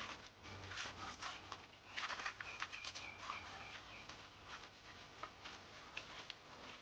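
Rustling of tomato plant leaves with uneven small clicks and snaps as cherry tomatoes are picked off the vine by hand.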